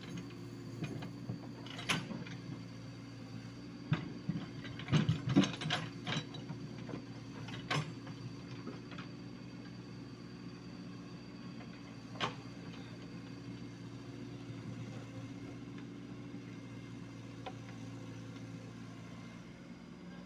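Komatsu PC75UU mini excavator's diesel engine running steadily while its bucket scrapes and knocks against soil and rock. The clanks come at irregular moments, loudest in a cluster about five seconds in, and thin out after about twelve seconds.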